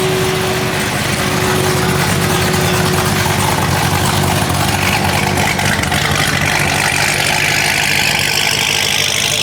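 A car engine running loudly, its pitch climbing through the second half as it revs up.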